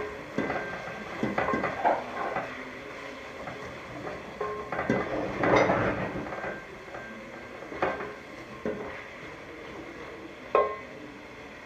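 A cooking spoon stirring vegetables frying in oil in a pot, scraping and knocking against the pot at irregular moments, over a faint sizzle. A louder cluster of scrapes comes about halfway through, and there is a sharp knock near the end.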